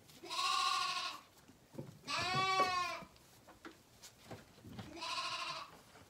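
Zwartbles lambs bleating: three wavering calls, each about a second long, the middle one the loudest.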